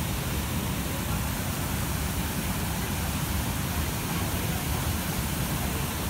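Nafakhum waterfall pouring into its plunge pool: a steady rushing of falling and churning water that does not let up.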